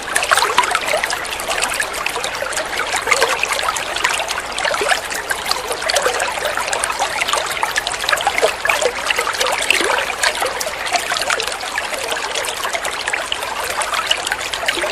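Water trickling and splashing steadily, a dense, even patter of small droplets and ripples with no pause.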